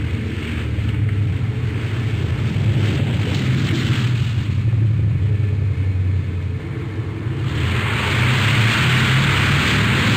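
Airplane landing: a steady low engine rumble, joined about seven and a half seconds in by a loud rushing hiss.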